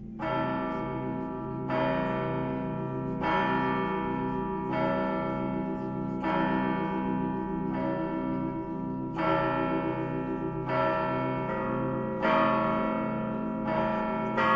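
Russian Orthodox church bells rung by hand: a peal begins just after the start, with a bright bell struck about every one and a half seconds over a quick, even pattern of smaller bells and the hum of the larger ones.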